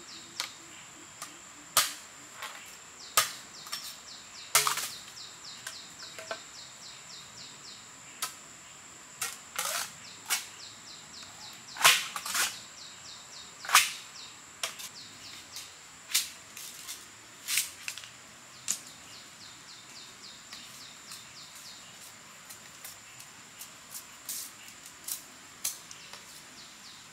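Machete working bamboo: a run of irregular sharp knocks and chops, loudest through the middle and thinning out after about 19 seconds. Insects trill steadily throughout.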